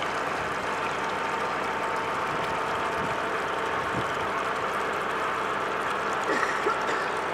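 Bilge pump discharge from a wooden cruiser's hull outlet, a steady stream of water splashing into the river.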